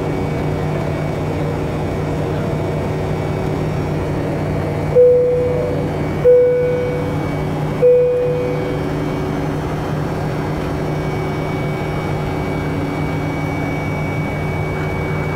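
Steady drone of a jet airliner's cabin in flight, with three single chimes of the same pitch about five seconds in and then twice more over the next three seconds, each one fading away quickly.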